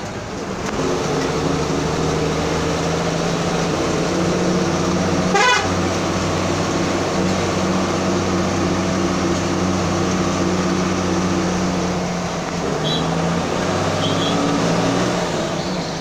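A vehicle's engine running at a steady pitch over road noise, heard from inside the moving vehicle, with the pitch shifting a couple of times. A short sharp sound comes about five and a half seconds in.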